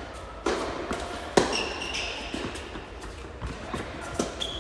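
Tennis ball being hit by racket and bouncing on the court: a handful of sharp knocks, the loudest about a second and a half in, with a short high squeak right after it.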